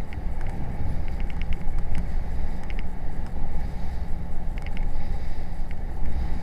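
Small boat's outboard motor running steadily under way, with wind buffeting the microphone and water splashing against an inflatable boat's hull in short, scattered ticks.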